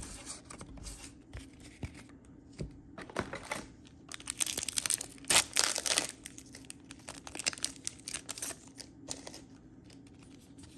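A trading-card pack wrapper being torn open and crinkled by hand: crackling rips, densest in the middle, with lighter rustling before and after.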